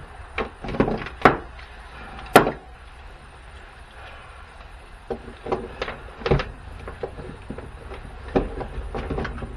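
Scattered knocks and clicks of plastic and metal parts from a dismantled battery booster pack being handled and set down, the sharpest about two and a half seconds in.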